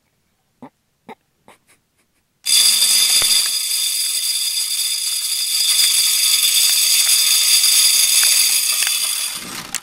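Spin-type game feeder going off: its spinner motor starts suddenly and broadcasts corn for about seven seconds, a loud steady whir and spray, then stops.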